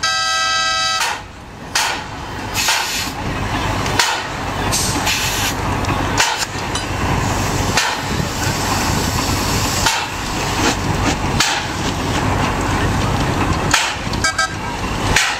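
A narrow-gauge train's locomotive whistle gives one short toot, about a second long. The train then rolls past with a steady rumble and irregular knocks and clanks.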